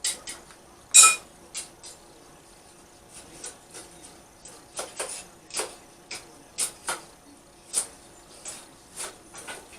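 Blacksmith's hammer striking iron on an anvil in a string of light blows at an uneven pace, about one or two a second. The loudest blow, about a second in, rings with a clear metallic tone.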